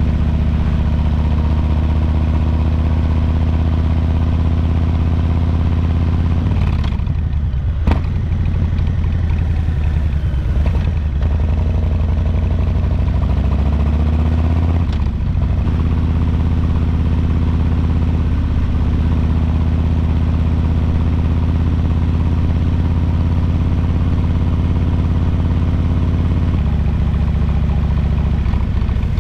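2022 Harley-Davidson Low Rider S's Milwaukee-Eight 117 V-twin running under way. Its note breaks off about seven seconds in, climbs back up about halfway through and changes again near the end, with a single sharp click about eight seconds in.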